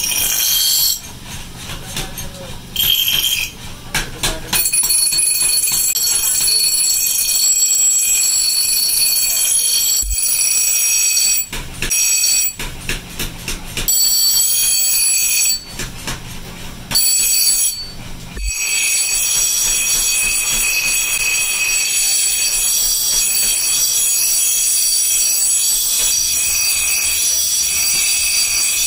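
Forged steel axe heads ground on a large motor-driven grinding wheel: a loud, steady, high-pitched screech that breaks off several times in the first eighteen seconds or so as the piece is lifted from the wheel, then runs unbroken to the end.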